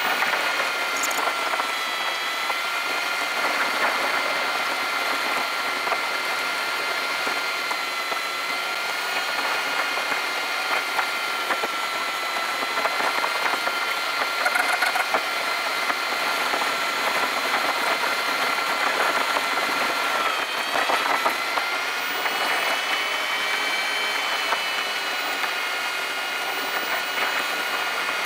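Car engine and road noise heard from inside the cabin, played back fast so it comes out as a steady high whine, drill-like, that shifts in pitch about twenty seconds in.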